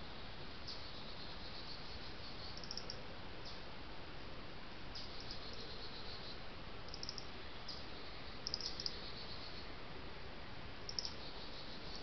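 Outdoor ambience: short, high chirps every couple of seconds over a steady hiss, with a slightly louder pair about two-thirds of the way in and another near the end.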